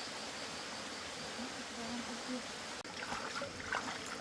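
Steady rush of running water, with faint voices in the first half. Shortly before three seconds in, a quick series of sharp splashes and sloshes in shallow water.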